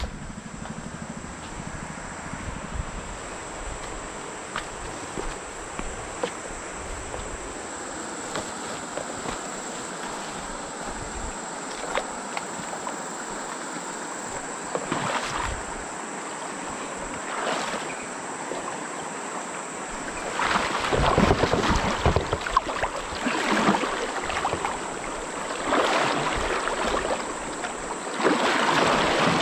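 Water sloshing and splashing, growing louder and more irregular about two-thirds of the way in, over a steady high insect buzz.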